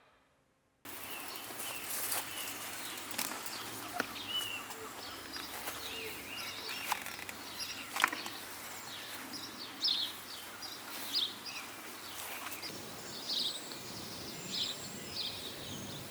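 Outdoor ambience with small birds chirping repeatedly, the chirps coming more often in the second half, and a few sharp clicks in the first half.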